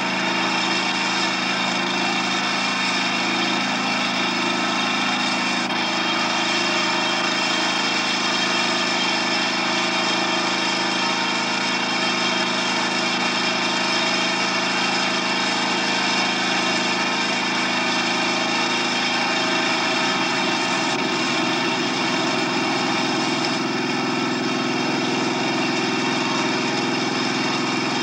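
Small engine-driven machinery running steadily, with a lower throbbing pulse joining about twenty seconds in.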